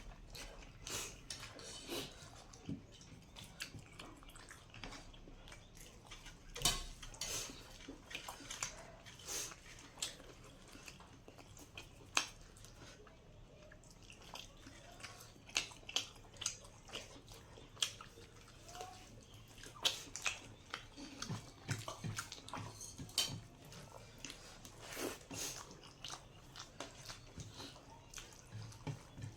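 A person eating a rice meal close to the microphone: irregular chewing and lip-smacking sounds, many short clicks scattered throughout.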